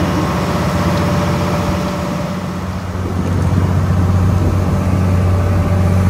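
A large engine running with a steady low hum, easing slightly about two and a half seconds in and then picking up again.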